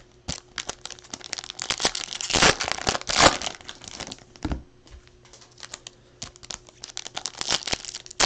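A baseball card pack's wrapper being torn open and crinkled by hand: a run of crackling, with two louder rips about two and a half and three seconds in.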